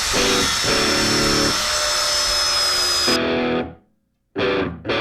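Background music: distorted electric guitar chords. The music cuts out to silence a little before the end, then comes back in short stabs.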